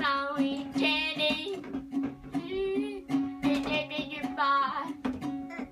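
Acoustic guitar strummed with a repeated low note, under high-pitched singing in short phrases.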